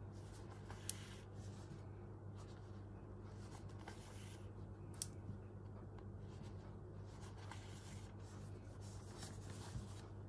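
Hand sewing: needle and thread drawn repeatedly through backed fabric in a whip stitch, a faint intermittent scratchy rustle with two small sharp clicks, about a second in and about five seconds in.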